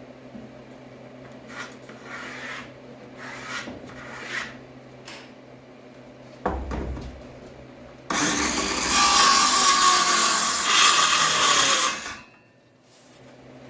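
Plywood being worked: a few short scraping strokes of wood rubbing, then a thump. After that a power tool runs loudly for about four seconds and stops abruptly.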